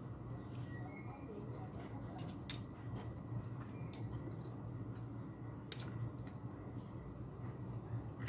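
Metal fork and spoon scraping and clinking against a ceramic plate while eating rice, with a few sharp clinks, the loudest near the end, over a steady low hum.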